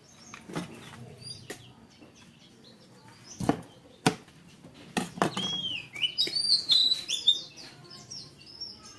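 Small birds chirping in a quick run of high, curving notes in the second half, with a few sharp knocks just before.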